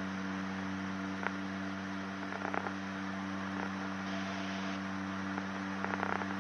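Steady low drone of a Gulfstream Turbo Commander's twin turboprop engines and propellers heard in the cockpit, an even hum with a few faint clicks.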